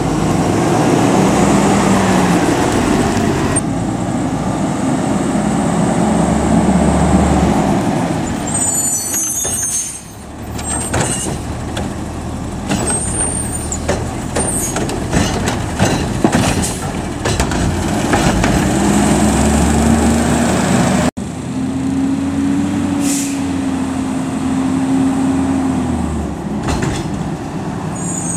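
Autocar ACX garbage truck with a Heil Freedom body and Curotto-Can arm: the engine revs up to drive the hydraulics while the arm lifts a trash cart and slams it against the hopper to empty it, with a run of metal clanks and bangs in the middle. The engine revs again near the end, with air-brake hiss.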